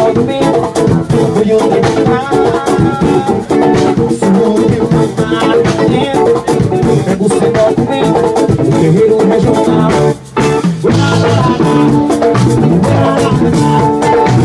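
Brazilian band music played live for dancing, loud and dense with a steady percussive beat; it drops out for a moment about ten seconds in.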